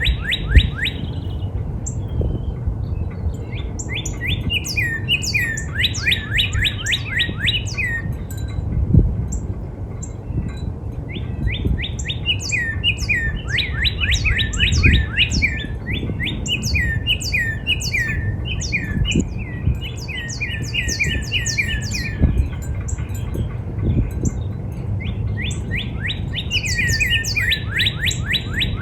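Northern cardinal singing: repeated phrases of quick down-slurred whistles in bursts of a few seconds with short pauses between them. A steady low rumble lies underneath, with a few short thumps.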